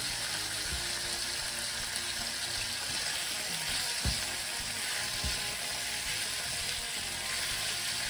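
Strips of beef sizzling in hot olive oil in a non-stick frying pan, stirred with a silicone spatula that gives a few soft knocks against the pan, the loudest about four seconds in.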